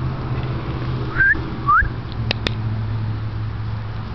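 Two short rising whistles, a person whistling to call a dog over, followed by two sharp clicks, with a steady low hum underneath.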